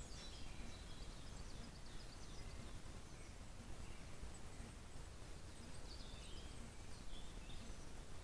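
Faint, scattered songbird chirps over a steady low background hiss and rumble.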